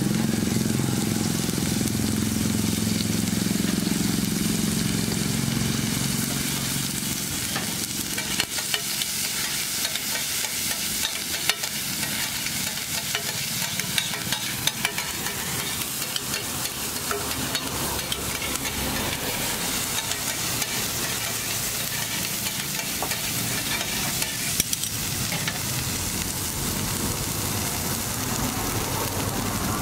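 Chopped tomato, onion and green chilli sizzling in oil on a large flat griddle (tawa), with a spatula scraping and clicking against the griddle now and then.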